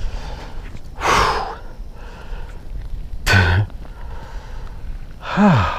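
A man breathing hard in three short bursts while straining, the last one near the end a grunt or sigh that falls in pitch, as wet aquatic weed is pulled away from a bass in his hands.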